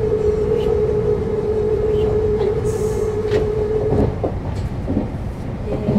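A Meitetsu limited-express train's music horn holds one steady note until about four seconds in, then stops, over the low rumble of the train running on the rails. A few wheel clacks over rail joints follow, and near the end the horn starts again on two notes.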